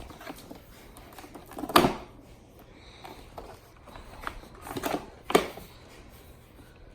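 Sharp clicks and knocks of a Doona infant car seat-stroller's hard plastic parts and buttons being handled. The loudest is about two seconds in, with a cluster of smaller clicks a little before five seconds.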